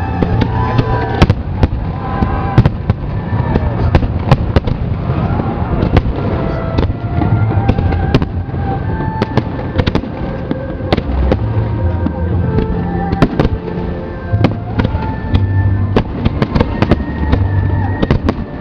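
A fireworks display: shells bursting in a rapid, irregular run of sharp bangs, several a second, over loud music with a pulsing bass.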